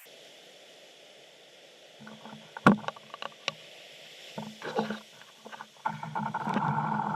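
Rescue jet ski engine revving in short bursts, then running more steadily near the end, with one sharp knock about two and a half seconds in.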